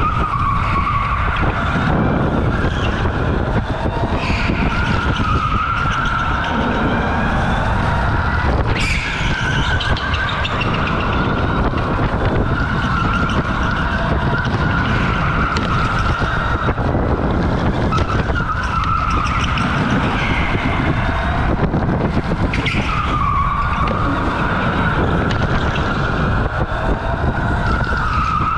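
OTL Storm electric go-kart's motor whining, its pitch dipping and climbing every few seconds as the kart slows for corners and accelerates out, over steady tyre scrub and rumble on the concrete track.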